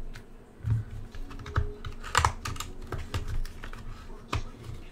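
A cardboard card-pack box being cut open along its top and its flap pried up by hand: a run of irregular clicks, taps and scrapes.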